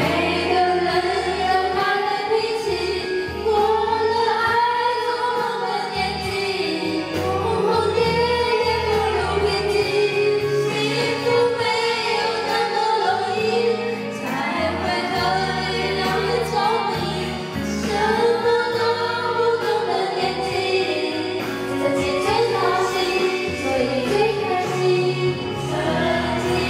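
Karaoke: women singing a slow Mandarin ballad along to a backing track.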